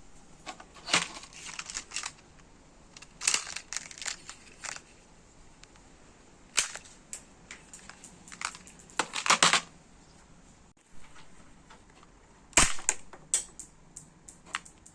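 Sharp plastic clicks and snaps from a 3D-printed Tic Tac gun being worked, coming in small irregular clusters with quiet gaps between.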